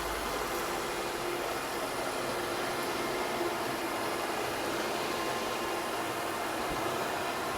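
Ecovacs Deebot N10 robot vacuum running, its suction fan a steady hiss with a faint hum.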